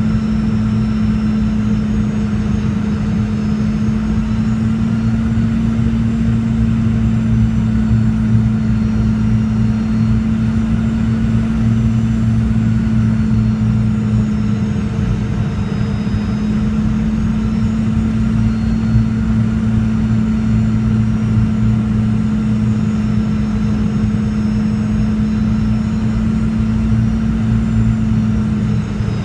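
Cabin noise of a Boeing 717 with its rear-mounted Rolls-Royce BR715 turbofans running: a steady hum over a low rumble, with a faint high engine whine that drifts slightly in pitch.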